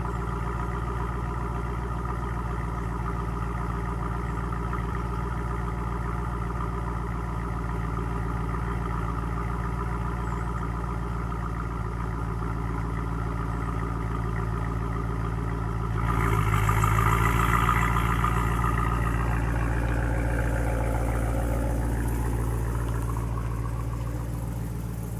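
Dodge Challenger T/A 392's 6.4-litre HEMI V8, mid mufflers deleted, idling steadily just after a cold start. About sixteen seconds in it gets louder and brighter, then eases back over the next several seconds.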